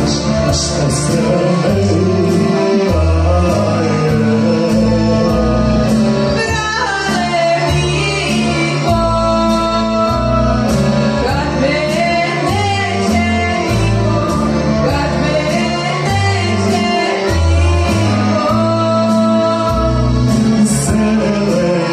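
Serbian folk song sung as a duet by a woman and a man into microphones, over an instrumental backing with a bass line and a steady beat.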